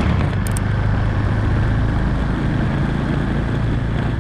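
Suzuki motorcycle's engine running steadily while riding at low speed, with road and wind noise.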